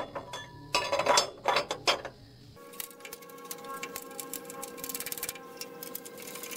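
Steel log-turner bracket clanking and knocking against the sawmill's steel bed rail as it is set in place. About two and a half seconds in, this gives way to background music with steady held tones and a quick ticking beat.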